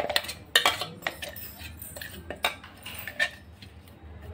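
Metal spoon scraping and knocking against a stainless steel mixer-grinder jar as ground biscuit powder is scraped out, giving irregular clinks, the sharpest at the start and about half a second in.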